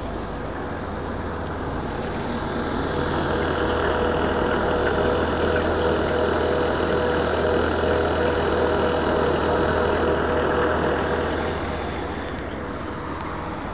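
Reef aquarium pumps and water circulation running: a steady low hum under a rushing noise that swells louder for several seconds in the middle and then eases back.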